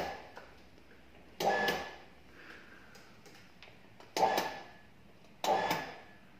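Compression testing machine giving four short, sharp mechanical bursts a second or two apart, each with a brief faint tone, as the loading platen is nudged to bring the force reading to zero before the test.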